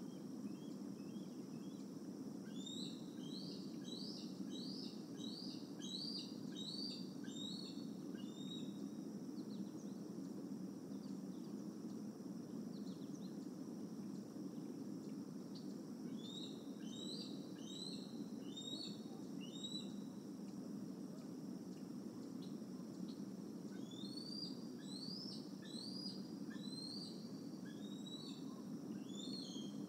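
A bird calling in three runs of short, high, rising notes, a few per second, over a steady low background hum.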